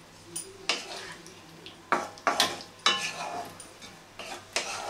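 Wooden spatula stirring and turning chunks of elephant foot yam and potato in a thick, nearly dry curry in a non-stick kadai, giving a string of irregular scrapes and light knocks against the pan.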